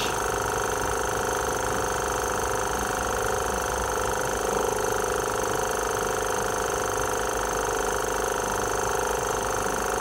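Steady hum of the small electric pumps on a homemade petrol-vapour heating rig: an air pump pushing air through the jar of petrol and the water circulation pump, running evenly with a faint high whine.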